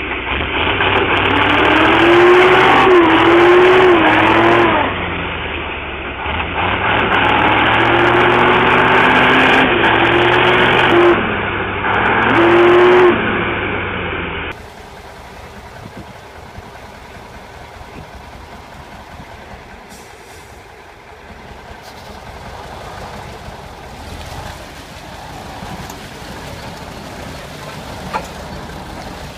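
Loaded logging truck's engine revving hard under load in deep mud, the pitch climbing and dropping in several surges. Partway through it cuts to a quieter, even rush of water and wind as a truck wades through a river.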